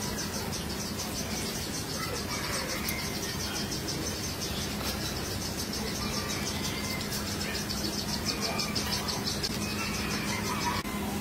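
An insect calling in a fast, evenly pulsing high-pitched trill that stops near the end, over a steady low hum.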